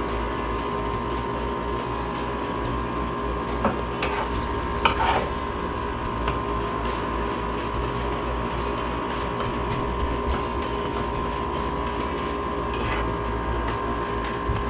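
Lachha paratha sizzling as it fries in ghee on a nonstick tawa, with a spatula scraping and pressing it around the pan and a couple of sharper taps about 4 and 5 seconds in, over a steady hum.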